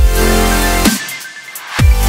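Electronic background music with heavy bass. The bass stops just under a second in and comes back with a falling sweep near the end.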